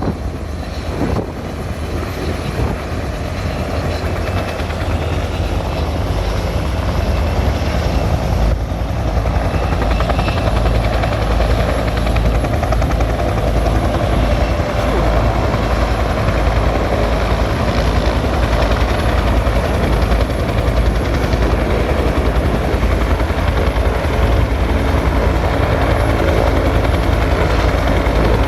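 Rescue helicopter's rotor and turbine running, a steady heavy beat of the blades that grows gradually louder.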